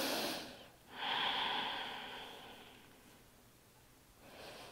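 A woman's audible breathing during a held stretch: a short breath in, a long breath out that fades away over about two seconds, and another short breath in near the end.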